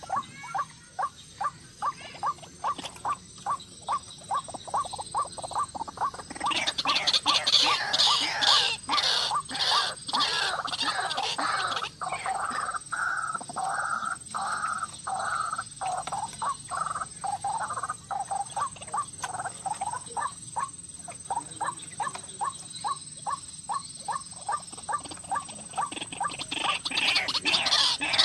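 White-breasted waterhen calling: a rapid series of short repeated notes, about three a second. The series swells into a louder, fuller run of calls about six seconds in and again near the end.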